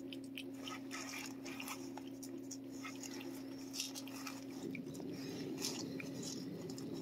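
A cat licking and eating a lickable paste treat squeezed from a tube, with many small, irregular wet smacks and licking clicks. A steady low hum runs underneath.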